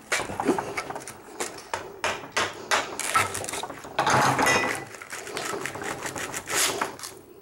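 Irregular metallic clicks and scrapes as a screwdriver pries copper winding wire out of a transformer's steel core clamped in a vise. A denser stretch of scraping comes about three to five seconds in.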